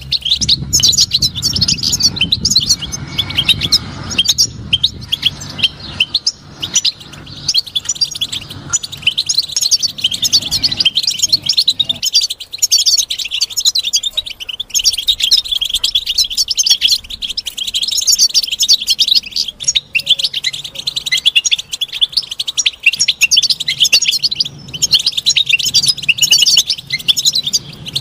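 European goldfinch singing: a long, fast run of high twittering and chirping notes with hardly a break.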